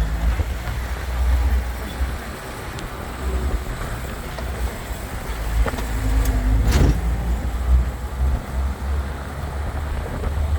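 4x4 truck driving along, a loud uneven low rumble of engine and road, with a couple of knocks a little past the middle.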